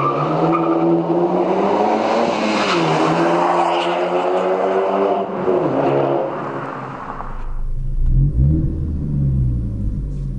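Ford Focus ST's turbocharged 2.0-litre four-cylinder with a sport exhaust, launched hard from a standstill and accelerating past. The engine note climbs in pitch, dips briefly about three seconds in, climbs again and fades away. About seven seconds in the sound cuts to a lower, deeper engine drone heard inside the cabin.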